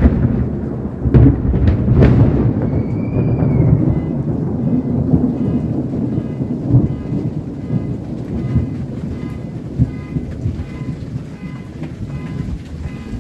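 Close thunder: a sudden loud crack with several sharp claps in the first two seconds, then a long rolling rumble that slowly fades. About two seconds in, a car alarm set off by the strike starts up faintly, its repeating tones sounding under the rumble.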